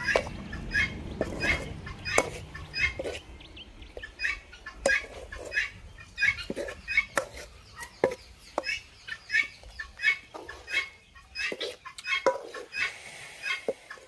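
Chickens clucking: a busy series of short, repeated calls, with sharp clicks here and there.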